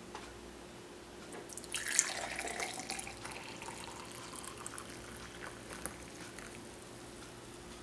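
Coffee poured from a glass carafe into a stainless steel mug insert: a splash as the stream first hits the metal about two seconds in, then a steady trickle that fades off.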